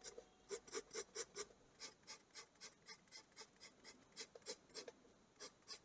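Mechanical pencil lead scratching on paper in short, quick strokes, about three a second, as a face is sketched.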